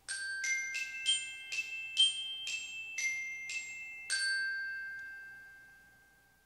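Countdown timer's finishing alarm: a short melody of about ten struck, bell-like notes. The last note, about four seconds in, rings on and fades out over a couple of seconds.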